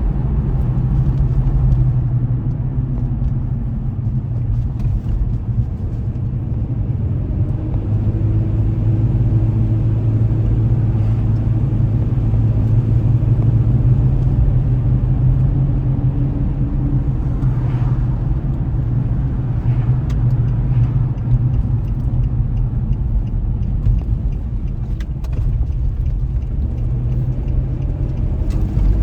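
A car driving along a road: steady low engine and road rumble, the engine's pitch drifting slightly as speed changes.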